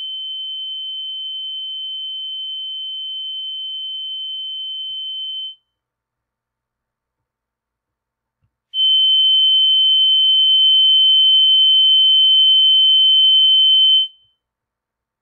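Two steady high-pitched pure tones from a tone generator, each about five to six seconds long, with a silence of about three seconds between them. The second tone is clearly louder than the first.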